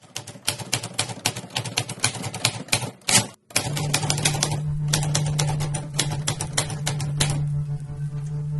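Typewriter keys clacking in quick, irregular strokes as a title is typed on, with a short rushing sound and a brief break about three seconds in. A low steady drone comes in just after the break, and the clacking stops about seven seconds in.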